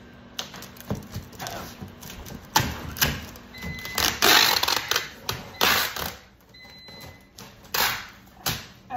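Packing tape pulled off a handheld tape-gun dispenser and run across a cardboard box in several noisy tearing pulls, the longest about a second long midway through, with knocks and taps of the dispenser and hand against the box.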